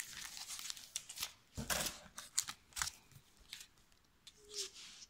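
Plastic stamp packets crinkling and rustling as they are handled and shuffled, in a string of short, irregular rustles.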